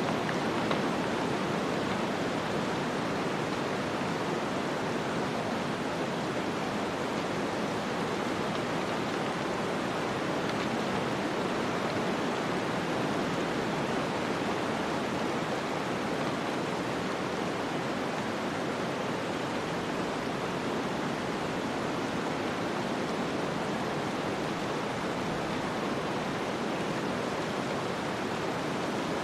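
Snowstorm ambience: a steady, even rushing hiss of wind-driven snow with no gusts, breaks or distinct events.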